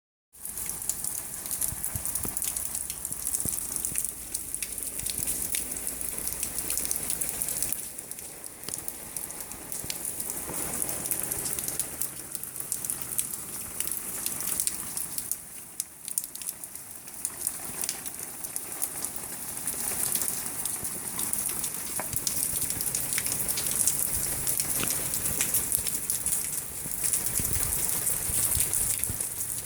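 Steady heavy rain from Tropical Storm Eta falling and pattering on surfaces: a continuous hiss full of fine drop ticks, easing briefly twice, about a quarter and about halfway through.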